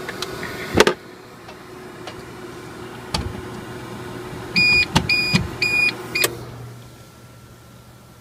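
APC Back-UPS Pro 1500 humming on battery power while its plug is handled, with a couple of knocks, then four short high beeps. The hum cuts off right after the beeps as the UPS is plugged back into wall power and switches back to mains.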